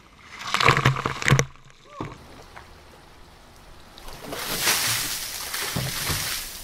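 Water poured from two large plastic buckets splashing down over two people and onto the pool deck, a steady rush lasting about two seconds from about four seconds in. About half a second in comes a loud, short burst of voices.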